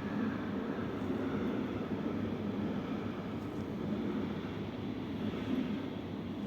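Steady running noise heard from inside a DB Class 425 electric multiple unit: an even rumble of wheels and drive with a low hum, no distinct knocks or squeals.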